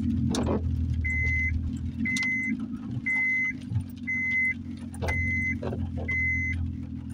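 Car's dashboard warning chime beeping six times, about once a second, over the low hum of the engine and cabin.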